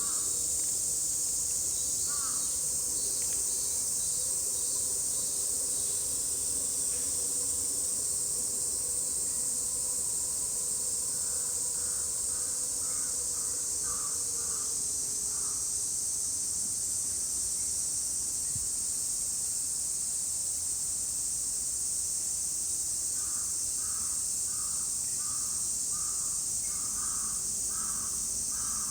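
Cicada chorus (semi-shigure), a steady shrill high drone throughout. Crows caw over it in quick runs of repeated caws: a couple at the start, a run of about eight in the middle, and another run of about ten near the end.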